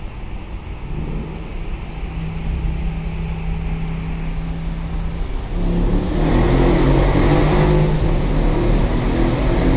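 2012 Mercedes-Benz CLS 63 AMG's biturbo V8 exhaust in a tunnel, running steadily at first. About halfway through it gets louder and fuller as the car accelerates.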